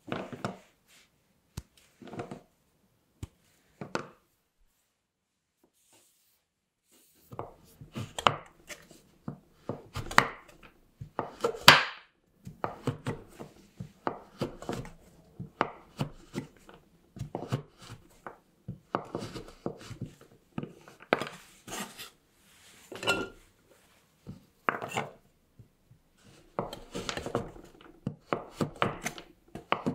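Kitchen knife chopping a chocolate bar on a wooden cutting board: a run of crisp cuts, several a second, each ending in a knock of the blade on the board. Before that, a few light clicks in the first seconds, then a short pause.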